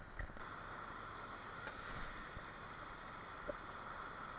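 Mountain river water rushing steadily over stones, with a few faint clicks.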